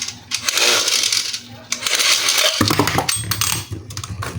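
Toys and packaging being handled: two spells of crinkly rustling, then rattling clicks over a low hum starting about halfway through.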